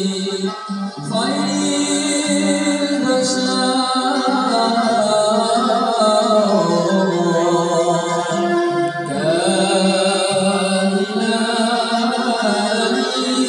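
Moroccan madih nabawi, religious praise songs for the Prophet, sung by a group of men's voices with violin accompaniment. The singing dips briefly, then comes back fuller about a second in.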